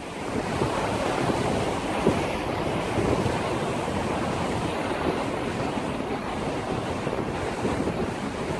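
Wind buffeting the microphone over a choppy sea, with waves washing. A steady rushing noise that fades in at the start.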